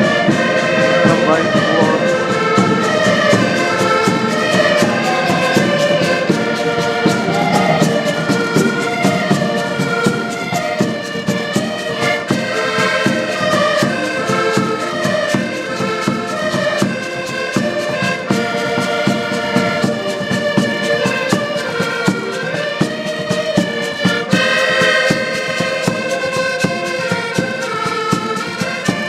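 Several diatonic button accordions playing a folk tune together, with a bass drum keeping a steady beat.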